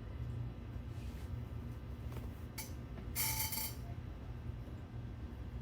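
A few light clicks of a utensil against a bowl while cabbage is added as a topping, then one brighter ringing clink a little past halfway, over a steady low hum.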